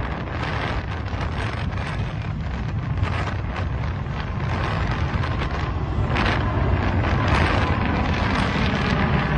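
Wind buffeting a phone's microphone over a steady low rumble, growing a little louder after about six seconds.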